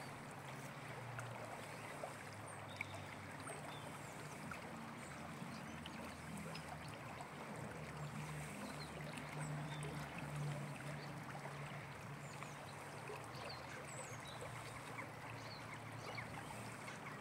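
Shallow stream flowing over its bed, a steady rush of running water. A low hum in the background swells around the middle.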